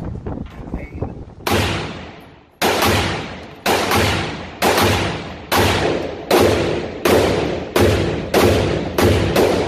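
Century Arms Micro Draco AK pistol (7.62×39 mm) fired in single shots, about ten of them, starting about a second and a half in. They come roughly a second apart at first and quicken toward the end, each shot ringing out in the echo of an indoor range.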